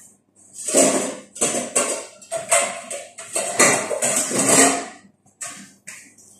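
Rustling and clattering of food packaging and a steel bowl being handled at a kitchen counter, in a quick run of short bursts that die away near the end.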